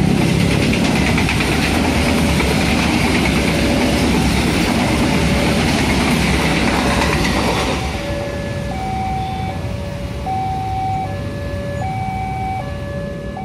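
Passenger coaches of a train rushing past at speed, their wheels rattling over the rails, dying away about 7 to 8 seconds in. Under it and then clearly on its own, a level-crossing warning alarm sounds two alternating tones, over and over.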